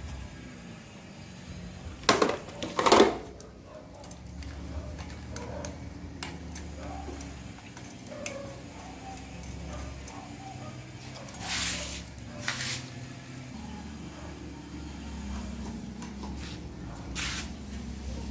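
Clinks and knocks of small metal parts being handled at a small engine's carburetor and throttle cable. Two loud clatters come about two and three seconds in, and two shorter scraping hisses come later, over a low steady hum.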